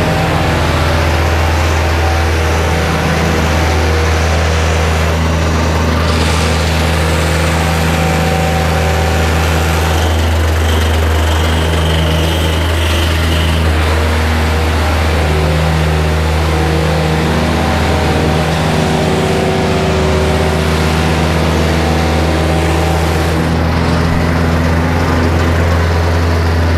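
Engine-driven vibratory plate compactor running steadily while compacting sand, a constant low drone from its motor and vibrating plate.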